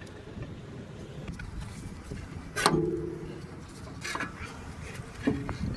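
Metal clanks and knocks as a new CV axle is worked into the front wheel hub. One sharp clank about two and a half seconds in rings on briefly, and lighter knocks follow near the end.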